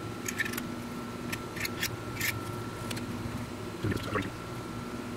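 Hobby knife with a No. 11 blade scraping flash off the edge of a plastic model kit wing part: a quick series of short, sharp scrapes, then a duller rustle of the part being handled about four seconds in, over a steady hum.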